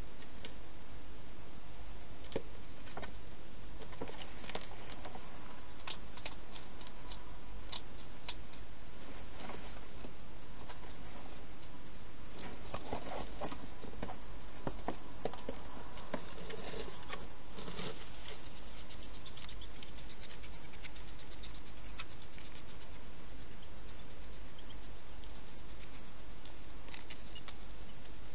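A hedgehog feeding at a bowl inside a plastic feeding box: irregular clicks and crackles of chewing and moving about, busiest about halfway through.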